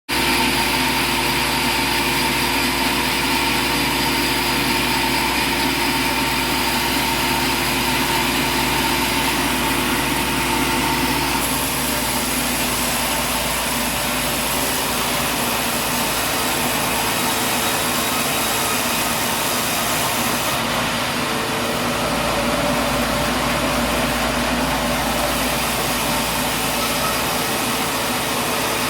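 Steady running of engine-driven machinery, a continuous drone whose tone changes abruptly twice, about a third and two-thirds of the way through.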